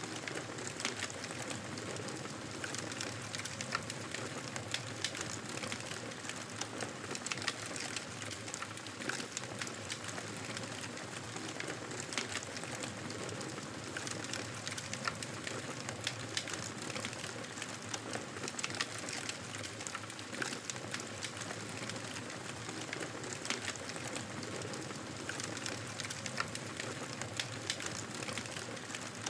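Campfire burning, a steady hiss with frequent small crackles and pops of burning wood.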